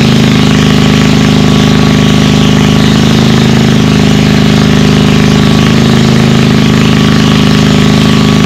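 Engine-driven water pump draining a pond, its engine running loud and steady at a constant speed.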